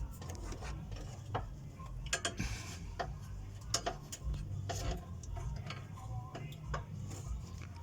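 Scattered light clicks and knocks from handling a silicone lubricant can in an engine bay, with a short hiss about two seconds in.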